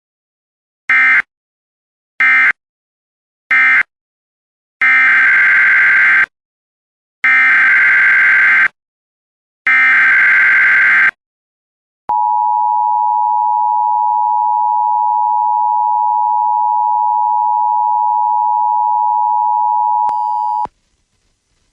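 Emergency Alert System signalling: three short screeching SAME data bursts marking the end of the message, then three longer SAME header bursts announcing the next alert. These are followed by the EAS two-tone attention signal, held steady for about eight seconds and cut off sharply.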